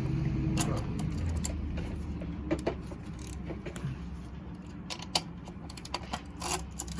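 Scattered light metallic clicks and taps of a hand tool working at the nuts on an electric chainsaw's bar cover, a little more frequent near the end, over a steady low hum.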